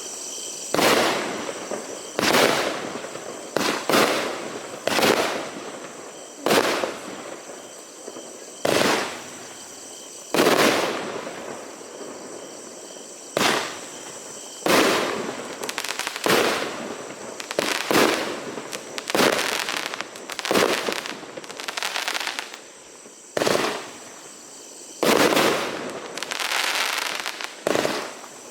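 Firework battery (cake) firing its shots: a string of loud sharp bangs about one to two seconds apart, each trailing off for a second or so.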